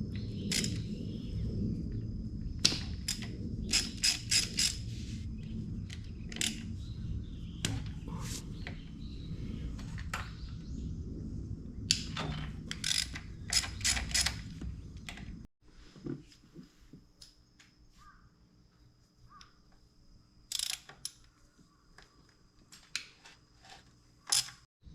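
Metal hand tools and engine parts clicking and clinking in irregular taps, some in quick runs, during disassembly work. A low rumble underneath cuts off abruptly about two-thirds of the way through, leaving scattered clicks over a faint hum.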